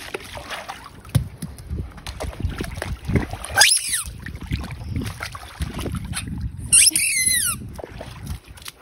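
Dogs wading in a water-filled inflatable kiddie pool, the water sloshing and splashing in irregular bursts. A short falling squeal comes about three and a half seconds in, and another, louder one around seven seconds in.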